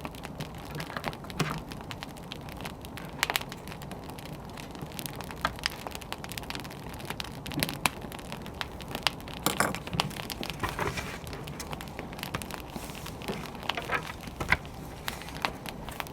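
Wood fire burning, with a steady low hiss and irregular sharp crackles and pops from the burning logs.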